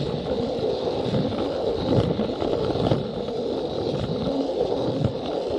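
Battery-powered Plarail toy train running on plastic track, heard from on board: a steady rattle of wheels and gearbox on the rails under a faint high motor whine, with small irregular knocks.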